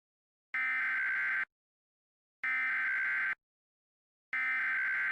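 Emergency Alert System SAME header data tones: three short electronic buzzes, each just under a second long and about a second apart, the coded header that opens an EAS alert.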